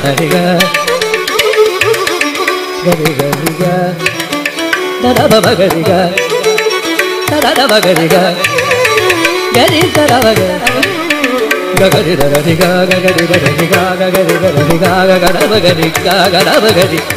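Carnatic classical music in raga Mohanam: an ornamented melodic line that glides between notes, with mridangam strokes and a steady tambura drone underneath.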